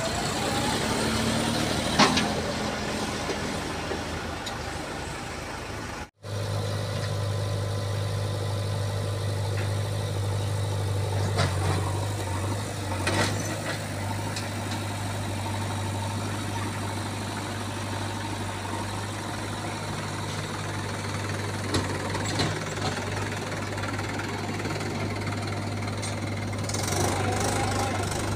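Diesel engines of farm tractors and a JCB 3DX backhoe loader running. After a cut about six seconds in, one engine hums at an even, steady pitch.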